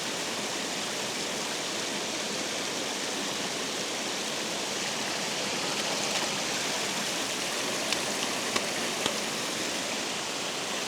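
Water rushing steadily over a spillway, with a few faint light clicks near the end.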